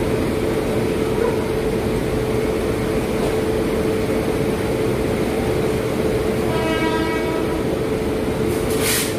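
WAP-7 electric locomotive moving slowly with a steady hum and a constant droning tone. About six and a half seconds in it gives a short horn note. Near the end there is a brief burst of high hiss.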